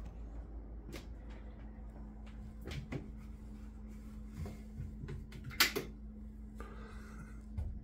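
An interior door is opened by its knob, with small latch and handling clicks, then a sharp click about five and a half seconds in as the bathroom light switch is flipped on.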